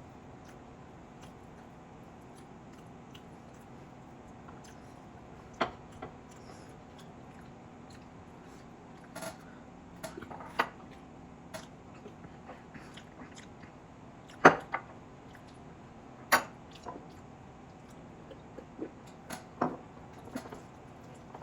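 A person eating chicken biryani: chewing, with scattered sharp clicks and knocks from the food and plate, the loudest about halfway through, over a steady low hum.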